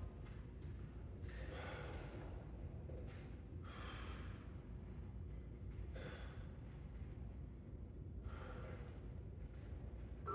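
A man breathing hard, a heavy breath roughly every two seconds: catching his breath during a rest break after a high-intensity boxing interval.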